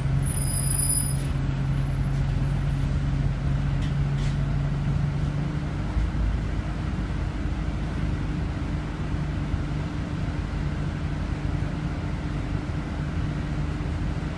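Scania OmniCity city bus engine running at low revs, heard from inside the passenger cabin while the bus stands and creeps in traffic: a steady low hum whose pitch steps up slightly about six seconds in. A thin high whistle sounds over it for the first few seconds.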